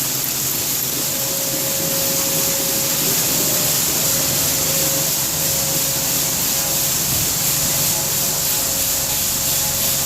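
Grain-handling machinery at a bin site running steadily as corn is conveyed into a grain bin: an even rushing hiss over a low, constant hum, with a faint steady whine.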